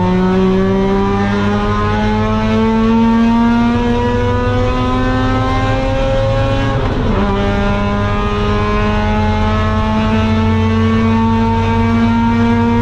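Mazda RX-8's two-rotor rotary engine under full throttle, its pitch climbing steadily. About seven seconds in there is a quick upshift, with a sharp drop in revs, and then it climbs again.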